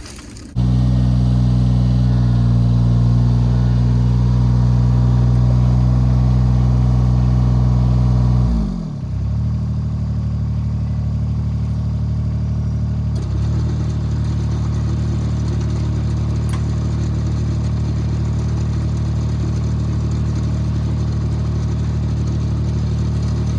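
John Deere 430 garden tractor's diesel engine running steadily, coming in suddenly just after the start. About nine seconds in the engine speed drops with a falling pitch, and it runs on at a lower, steady note.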